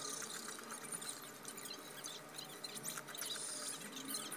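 A person chewing a soft, cream-cheese-filled protein crispy roll: quiet, close wet mouth clicks and smacks, many in quick succession.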